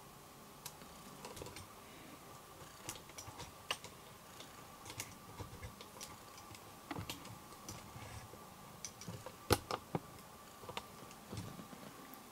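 Faint scattered clicks and soft rustling from a tabby cat rolling on a bedspread while being stroked, with a sharper double click about nine and a half seconds in, over a faint steady hum.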